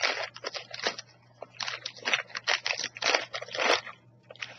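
Plastic snack bag crinkling as it is opened and handled, in irregular bursts of crackling with short pauses between them.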